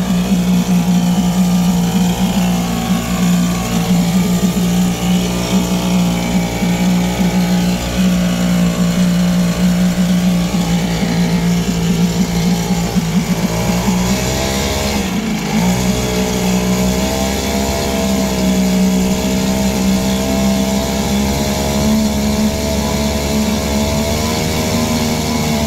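Tanaka 175 two-stroke outboard motor running in a water-filled test tub, its propeller churning the water. The engine note dips sharply about fifteen seconds in, then picks up again and wavers up and down.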